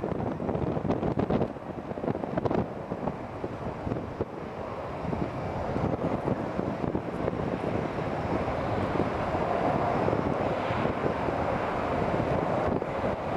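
Wind buffeting the microphone over the rising rumble of an electric passenger train approaching on the rails, growing louder over the first half and then holding steady.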